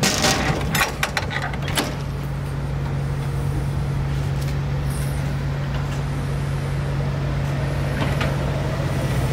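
Metal clanks and rattles of a livestock truck's side hatch being swung shut and latched, several sharp knocks in the first two seconds, over the steady low drone of the idling truck.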